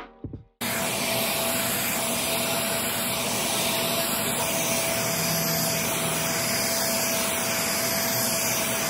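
A handheld hair dryer blowing hair straight during a Dominican blowout. It makes a steady rushing whirr with a constant whine under it, starting abruptly just after the start and cutting off suddenly at the end.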